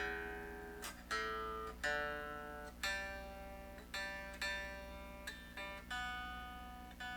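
Vintage VS6 electric guitar's strings plucked one note at a time, about eight plucks, each ringing and fading before the next: the strings being checked against a clip-on tuner.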